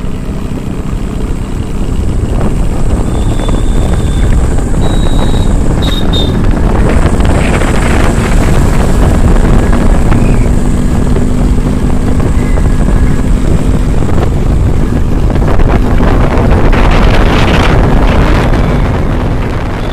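Bajaj Chetak scooter riding along, its engine running steadily under wind buffeting on the microphone.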